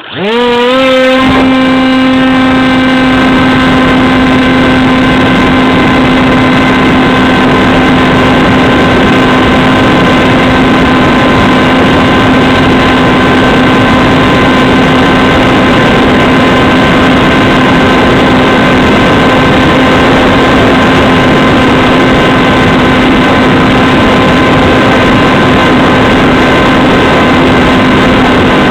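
Electric motor and propeller of an AXN Floater Jet RC plane spinning up with a quick rising whine in the first second, then running at a steady high pitch at full throttle over a constant rushing noise.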